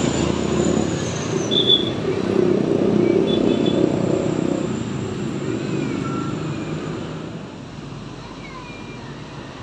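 Road traffic: engines of idling and passing buses and motorcycles, loudest in the first half and easing off after about seven seconds.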